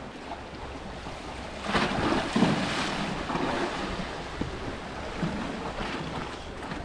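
Sea water washing and lapping, with wind on the microphone; the noise swells louder about two seconds in.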